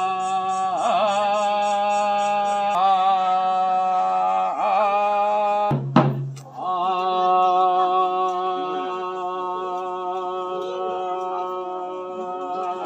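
A male voice chanting a ritual invocation in long held notes: a few short phrases, each starting with a wavering rise, then one long, steady note. A faint rapid jingling runs under the first phrases, and a single sharp knock comes about halfway through.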